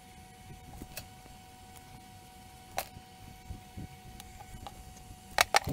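Small sharp plastic clicks and taps from handling a clear plastic lamp bracket and LED bulbs: a few scattered clicks, then a louder quick cluster of clicks near the end. A faint steady tone runs underneath.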